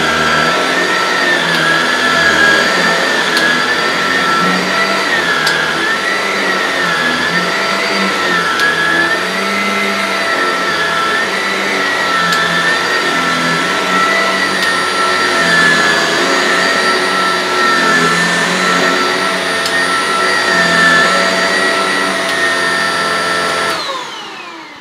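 Shark NV680 Powered Lift-Away upright vacuum cleaner running in carpet mode with its brush roll on, pushed back and forth over carpet: a steady loud motor whine with one higher tone wavering up and down. Near the end it is switched off and the whine falls in pitch as the motor spins down.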